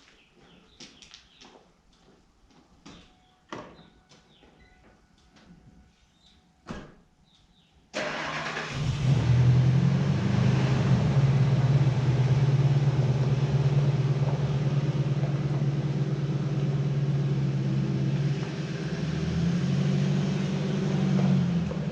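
A few light clicks and knocks, then about eight seconds in a heavy-equipment engine comes in suddenly and runs steadily with a low hum.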